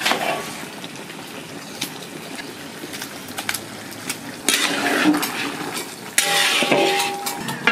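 Long metal spatula scraping and knocking against a large metal kadai as thick, saucy chilli chicken is stirred, over a low steady sizzle. The loudest scrapes come about halfway through and again near the end.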